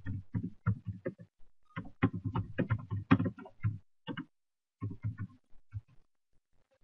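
Computer keyboard being typed on: quick, irregular key clicks, with a brief pause about four seconds in and a few scattered keystrokes after it.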